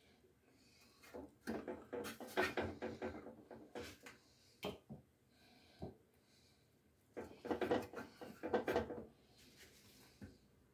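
Hands handling sauce-coated chicken drumsticks and setting them into an airfryer's mesh basket: two stretches of wet rustling and clicking, with a few single knocks between.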